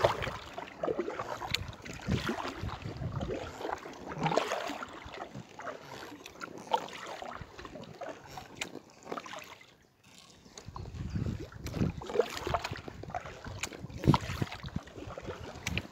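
Kayak paddling: irregular splashes and drips of water from the paddle blades, with occasional sharp clicks. From about ten seconds in, a low rumble of wind on the microphone runs under the splashing.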